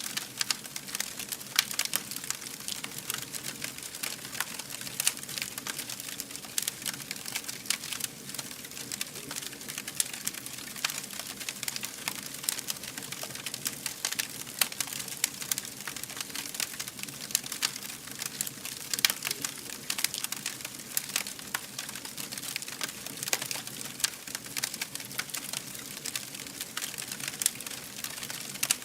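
Fire burning and crackling: a steady stream of small, sharp pops and snaps over a soft hiss.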